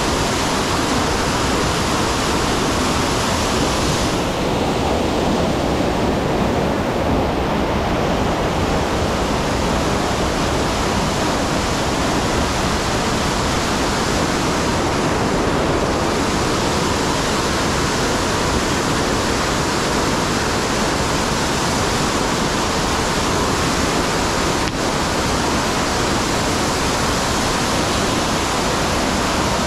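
Waterfall pouring steadily: a loud, even rush of falling water.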